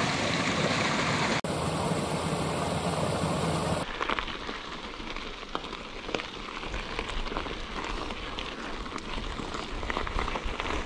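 Rushing water of a small flowing creek, an even hiss. After about four seconds it cuts to a quieter background with scattered light ticks and knocks.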